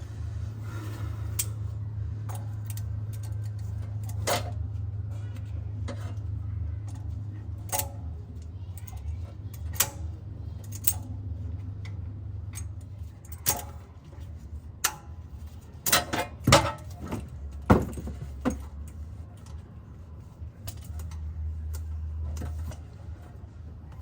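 Metal clinks and sharp knocks from hand tools at work on the car's underside as the oil filter is taken off, scattered through and busiest about two-thirds of the way in, over a steady low hum.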